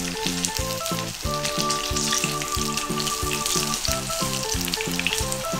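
Potato-starch-coated chicken wings sizzling steadily as they fry in about a centimetre of hot oil in a frying pan.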